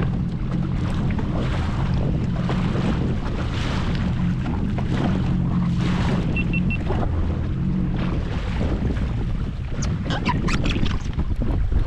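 Jet ski engine running at a low idle, a steady hum, with wind and water noise on the microphone. Three short high beeps come about six seconds in.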